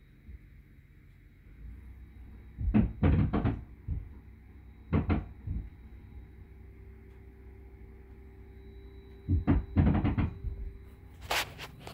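Several dull knocks in short clusters and a sharp click near the end, over the faint steady hum of a Hampton Bay Devron II ceiling fan's motor.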